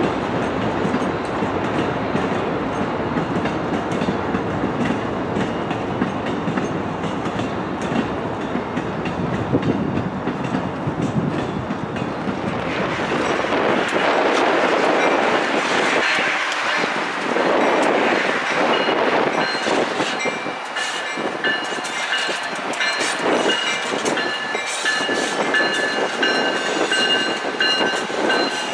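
A MARC commuter train running by, with a steady rumble from its bilevel coaches. About halfway in the sound changes to a lighter clatter of wheels on track. In the last third, a MARC train led by Siemens SC-44 Charger locomotives rolls slowly in, with clicks from the wheels and several high steady tones held over them.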